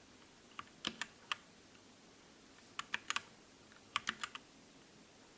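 Scattered key presses on a MOTOSPEED K87S mechanical keyboard with red switches: about a dozen faint, short clacks in small irregular clusters rather than steady typing.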